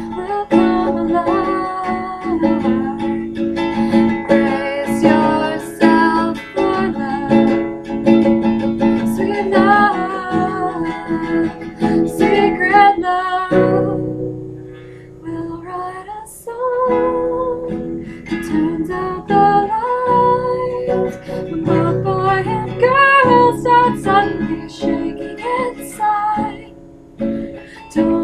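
Acoustic guitar played with a mix of picking and strumming while a woman sings a pop song. The song thins out briefly about halfway through, then both pick up again.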